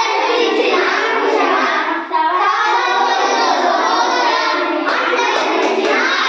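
A group of schoolchildren singing a Telugu action song together, with a short pause between lines about two seconds in.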